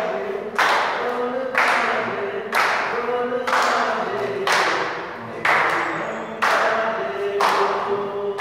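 Steady rhythmic hand clapping, about one clap a second, each clap ringing briefly in the room, over music with a held singing voice.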